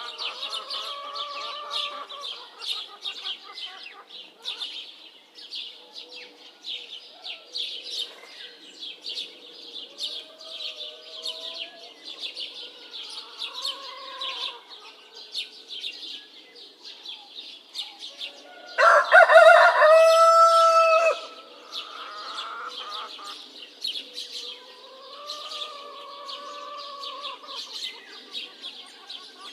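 Roosters crowing again and again over constant chirping of small birds, with one much louder, closer crow about two-thirds of the way through.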